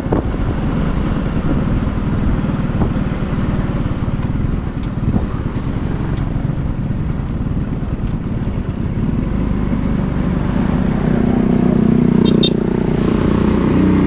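Motorcycle engine running on the move, with a steady low rumble; its pitch rises over the last few seconds as it speeds up.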